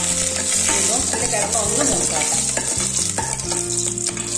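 Mustard seeds and dried red chillies sizzling steadily in hot oil in a pot while a metal ladle stirs them: a tempering for rasam.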